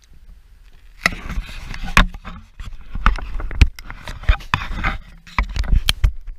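Crunching and scraping on snow-covered ice, with irregular knocks, as someone shuffles and kneels beside a tip-up hole. It starts about a second in and goes on in uneven bursts.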